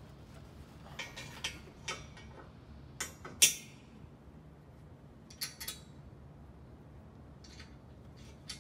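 Scattered metallic clicks and clinks of bolts, washers and nuts being fitted by hand into a metal rig frame's upright and bracket, about a dozen over several seconds, the sharpest about three and a half seconds in.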